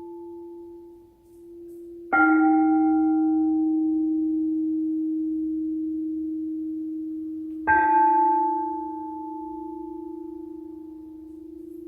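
Quartz crystal singing bowls struck twice, about two seconds in and again near eight seconds. Each note rings on and slowly fades over the hum of the one before.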